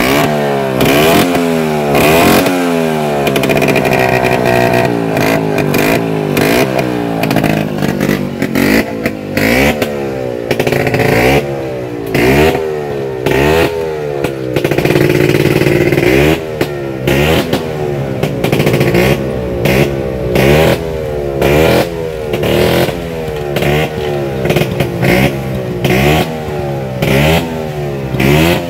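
Vespa scooter's two-stroke engine being revved hard in repeated blips, its pitch climbing and dropping back about once a second, with a few longer held revs; an engine test run.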